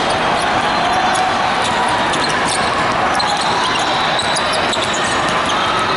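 Basketball game on a hardwood court in a large, echoing hall: a steady din of the hall with a ball bouncing and many short, high sneaker squeaks.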